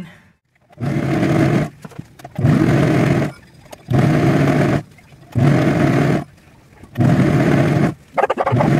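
Serger (overlock sewing machine) running in short runs of about a second each, stopping and starting six times as fabric is fed through. The first run starts about a second in.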